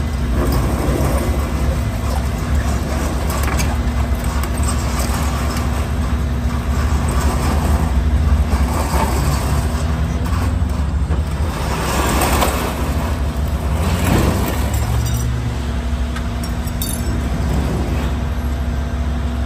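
Heavy-duty rotator tow truck's diesel engine running steadily with a constant low drone, powering the winch as the cable lifts and rotates an overturned semi tractor. A louder rushing swell comes about twelve seconds in.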